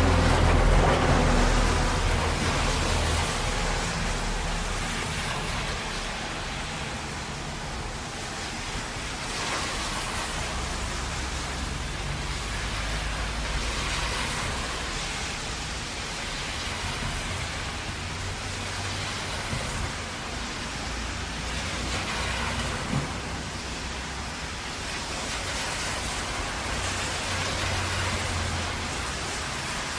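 Heavy rain with traffic on a wet road: a steady hiss of rain and tyre spray, with low rumbles that swell and fade every several seconds, loudest at the start.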